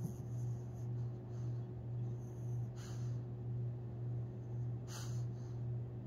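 Long-haired chihuahua snoring in its sleep: a low, steady drone under short, hissy breaths through the nose about every two seconds.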